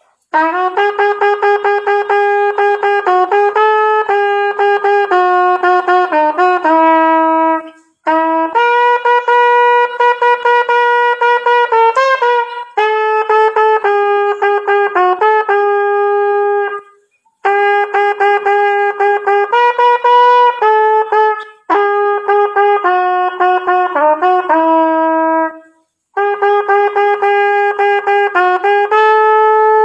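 Solo trumpet playing a melody in short phrases of held notes and quick runs, with brief breaks for breath between phrases.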